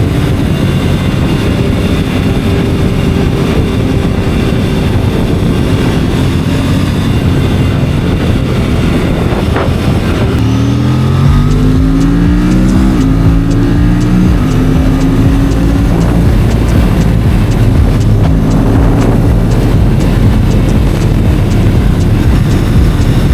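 Stock Aprilia RS 457 parallel-twin engine under way. About ten seconds in, the throttle opens and the revs climb. Near thirteen seconds the pitch drops back, as at an upshift, and the engine then pulls on at fairly steady revs.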